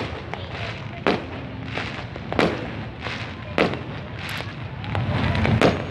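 Fireworks going off: about five sharp bangs, roughly one every second, with smaller pops between them over a continuous background din. The loudest bang comes near the end.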